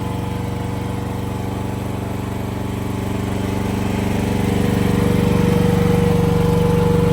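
Engine of an AGT QK16-R mini excavator idling steadily with an even, fast firing rhythm, getting a little louder about four and a half seconds in.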